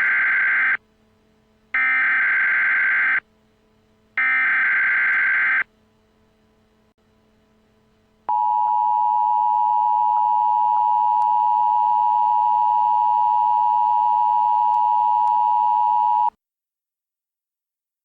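Emergency Alert System tones. Three bursts of SAME digital header data, each about a second and a half long, are followed after a short pause by the steady two-tone attention signal. The attention signal holds for about eight seconds and cuts off abruptly. Together they mark the start of an emergency alert, here a tornado warning.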